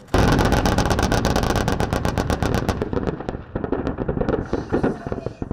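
Rapid automatic machine-gun fire in a steady stream of about seven shots a second, starting abruptly; about three seconds in it thins into scattered, irregular shots over a continuing rumble of fire.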